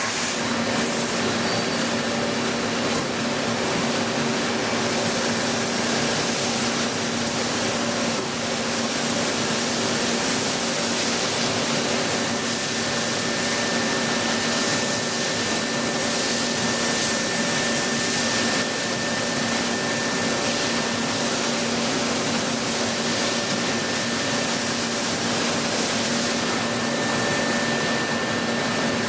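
CNC machine tool running: a steady hum of several held tones over an even hiss, with a thin higher whine joining about twelve seconds in and stopping near the end.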